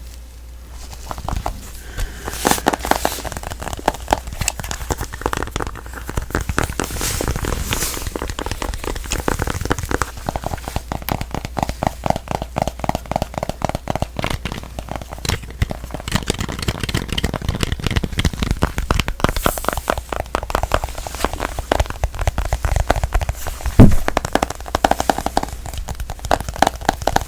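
Rapid tapping on a smartphone, many quick clicks a second in dense runs, with one sharper knock near the end.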